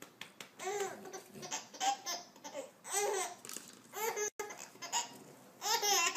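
A baby laughing in short, high-pitched bursts of giggles, about six of them, each arcing up and down in pitch.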